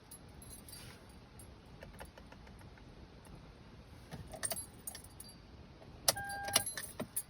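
Car keys jingling with light metallic clicks, in two short bursts about four and six seconds in; the second burst carries a brief steady beep-like tone.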